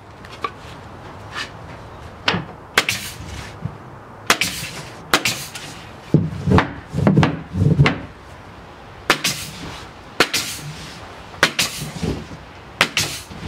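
Mallet striking a pneumatic floor stapler, each blow firing a staple into soft bamboo flooring: a dozen or more sharp bangs at uneven intervals, with a run of heavier thuds near the middle.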